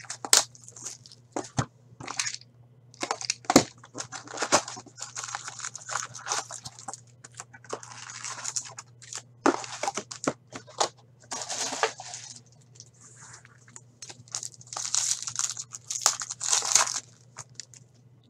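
Plastic shrink-wrap being torn off a trading-card box, then foil card packs crinkling and being ripped open: a busy run of sharp crackles, rustles and tearing.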